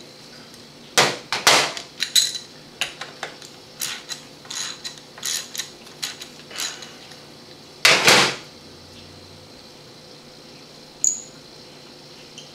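Metal clinks and knocks of hand tools against the cast-iron tail housing of a Chrysler 727 automatic transmission on a metal workbench: a quick run of sharp taps for the first several seconds, then one loud clank about eight seconds in and a single click near the end.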